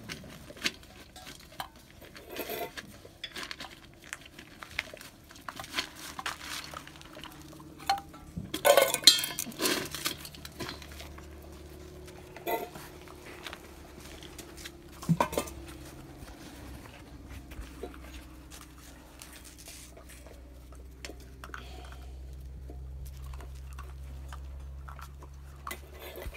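Stainless steel dog bowls clinking and clattering on concrete as puppies eat kibble and push the bowls around, in scattered knocks with the loudest clatter about nine seconds in.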